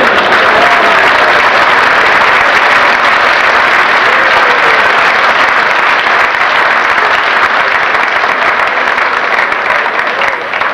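Audience applauding, loud and steady, easing off near the end.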